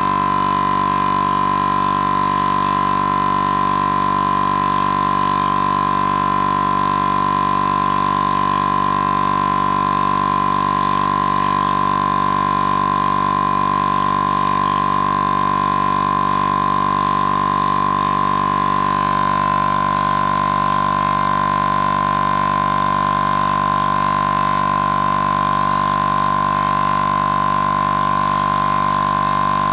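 Small portable air compressor running steadily, pumping air through its hose, with a constant high-pitched motor whine that shifts slightly about two-thirds of the way through.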